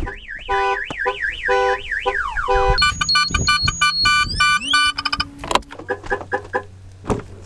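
Car alarm going off as the car is being opened, cycling through its siren patterns: a fast up-and-down warble, then rapid changing beeps. It cuts off about five and a half seconds in.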